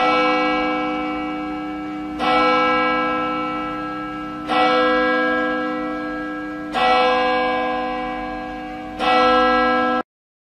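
A church bell tolling five slow strokes, about two and a quarter seconds apart, each ringing on and fading until the next strike; it cuts off suddenly after the fifth.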